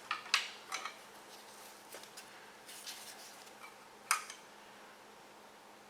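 Metal hand tools and engine parts clinking and tapping as they are handled: two sharp clinks near the start and a louder one about four seconds in, over a faint steady hum.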